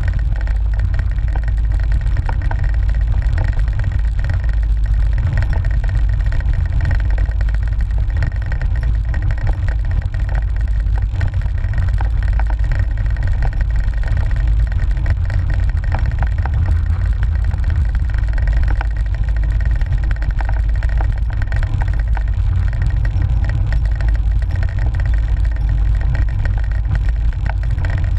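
Steady, loud low rumble of wind buffeting the microphone of a handlebar-mounted GoPro on a moving cyclocross bike, mixed with tyre and road vibration carried through the mount and scattered small knocks and rattles from the road surface.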